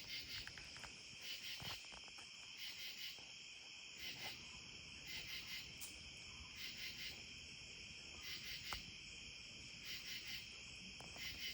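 Night insects, such as crickets, chirping: a steady high trill with louder pulsing bursts about every second and a half, and an occasional faint click.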